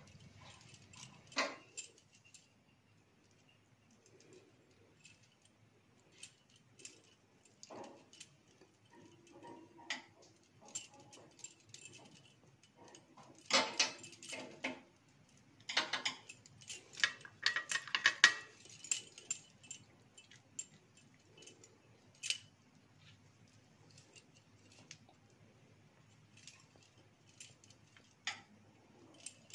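Faint, scattered clinks and jingles as bitter gourds are stuffed by hand with spice paste: bangles jingling on the wrist and fingers and gourds knocking against a steel bowl and plate. The clinks come in short clusters, with a busier stretch in the middle.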